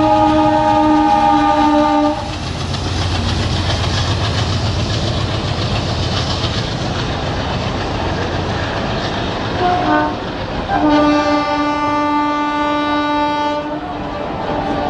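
WDM-2 diesel locomotive's horn sounding, then cutting off about two seconds in, leaving the locomotive's engine running and the train rolling past with wheels clattering over the rail joints. A short toot comes about ten seconds in, then a long horn blast of about three seconds, and another blast begins near the end.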